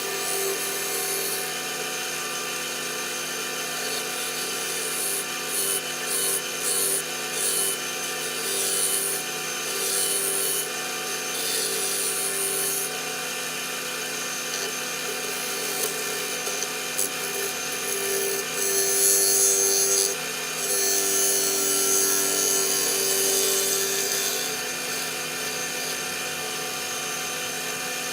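Wood lathe running steadily with a hum, as a tool works against the spinning walnut blank in several spells of scraping, rushing noise.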